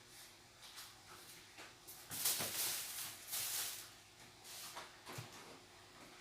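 Rustling and handling noises, a run of short scuffs and rustles that is loudest from about two to four seconds in.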